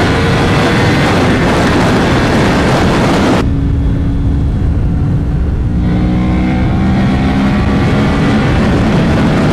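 Yamaha R1M's crossplane inline-four, breathing through a custom aftermarket exhaust, running hard at high revs under way. About three and a half seconds in, the sound drops abruptly to a lower, steadier engine note, which then rises slowly in pitch as the bike picks up speed again.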